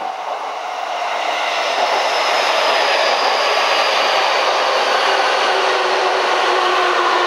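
Sotetsu 11000 series electric train pulling into the station and slowing, its wheels running along the rails with a steady rumble that grows louder over the first couple of seconds as it draws alongside. A faint whine falls slowly in pitch as the train brakes.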